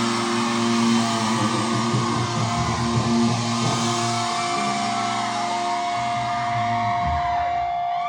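Live rock band music with guitar, playing sustained ringing chords; a single high note is held through the second half before the sound cuts off sharply at the end.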